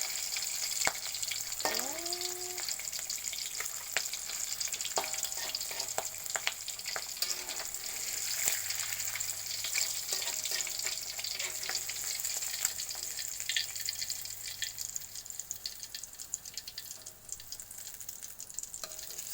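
Egg frying sunny-side up in hot oil: steady sizzling with frequent sharp pops of spitting oil, dying down over the last few seconds.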